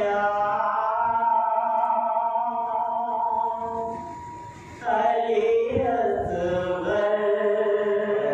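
A man's solo voice singing an unaccompanied devotional chant in long drawn-out phrases. One note is held for about four seconds, then after a short break a second sustained phrase follows.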